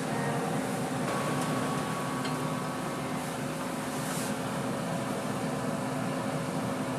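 Steady machine hum and hiss, with a few faint light clicks and a brief hiss about four seconds in.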